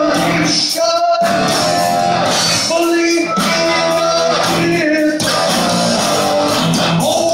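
Heavy metal band playing a song live at full volume: electric guitar, bass and drums, with sung vocals.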